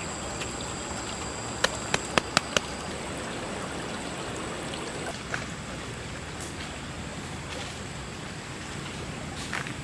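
A river flowing steadily, with a quick run of about five sharp clicks about two seconds in.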